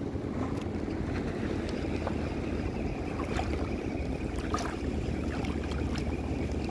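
Wind on the microphone and small waves lapping in shallow seawater, with a steady low hum and a few faint ticks.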